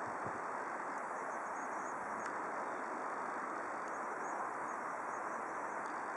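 Distant jet engines of an Airbus A319 running at takeoff thrust during its takeoff roll: a steady, even roar with no clear tones.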